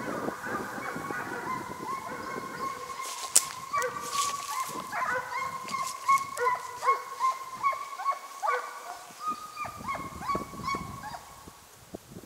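Russian hounds baying on a hare's trail: a steady run of repeated pitched yelps, about two a second, dying away near the end.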